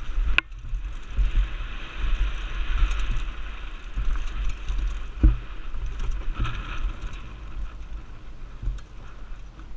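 Decathlon Rockrider 6.5 mountain bike rattling over a rough dirt trail, with wind rumbling on the helmet camera's microphone and scattered ticks. A sharp knock comes about half a second in and a heavier thump about five seconds in.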